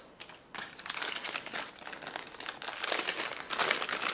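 Ration packaging crinkling and rustling as it is handled and opened, starting about half a second in and growing busier and louder toward the end.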